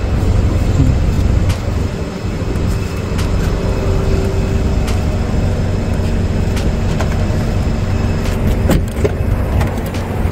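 Steady street traffic noise around a waiting taxi, heavy in the low end, with a few light knocks as passengers climb into the car.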